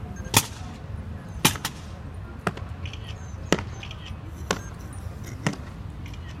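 Kremlin guard's boots striking stone paving in a slow ceremonial goose step: six sharp heel strikes, about one a second.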